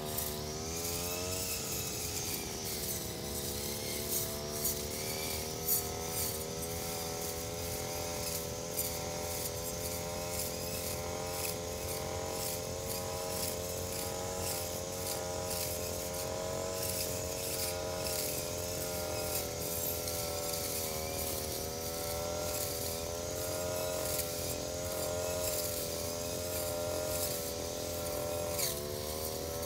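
Engine brush cutter running at steady high revs while cutting grass. Its pitch rises as it revs up about a second in and again near the end. Sharp ticks and a few knocks come from the cutting head striking grass and debris.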